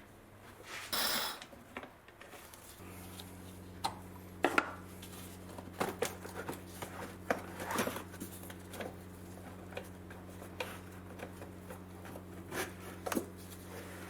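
Light clicks, knocks and scrapes of a 5 mm Allen key turning out the three screws of a plastic cover in a car's engine bay, with a steady low hum starting about three seconds in.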